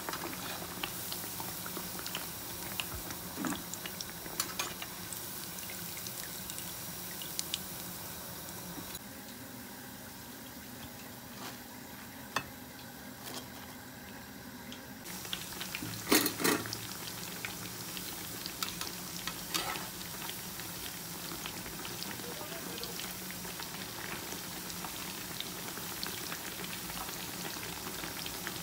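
Meat kebab patties shallow-frying in hot oil, a steady bubbling sizzle. It turns quieter for a few seconds in the middle, and scattered sharp clicks and knocks come through, the loudest a pair just past the middle.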